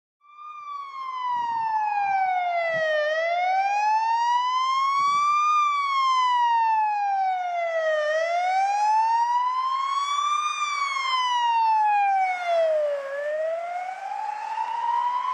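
Ambulance siren in a slow wail, its pitch sliding down and back up about every five seconds, three times over.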